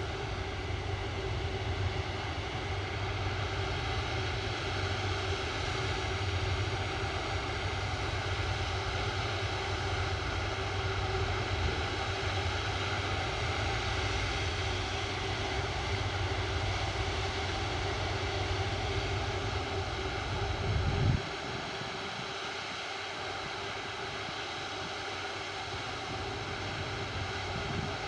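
Airbus A330-300 jet engines running steadily, a constant whine with several steady tones over a low rumble. The low rumble drops away abruptly about three quarters of the way through while the whine carries on.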